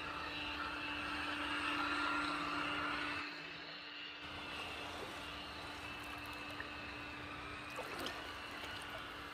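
Small electric motor of a radio-controlled model boat humming steadily with a thin whine, over water lapping and gurgling. It is louder for the first three seconds, then drops and carries on more quietly.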